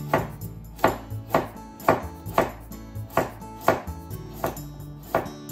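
Chef's knife slicing through a raw carrot and striking a wooden cutting board, in a steady run of about two to three chops a second.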